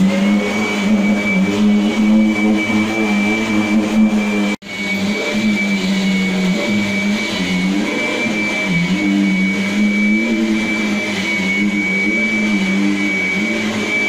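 Vacuum cleaner running on carpet, a steady motor hum with a thin high whine over it. The hum wavers in pitch as the head is pushed back and forth over the pile. The sound breaks off for an instant about four and a half seconds in, then carries on.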